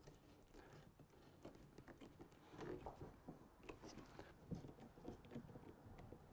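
Faint handling sounds of steel bar clamps being set and screwed tight on a glued wooden box: scattered small clicks and taps of metal and wood against an otherwise near-silent room.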